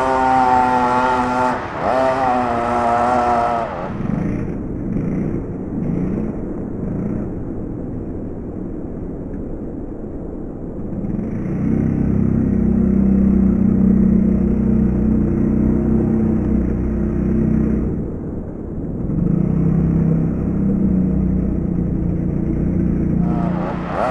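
Small two-stroke engine of a radio-controlled monster truck, revving high with a wavering whine for the first few seconds, then running more quietly. From about halfway it settles into a steady lower-pitched drone, with a short dip near 18 seconds.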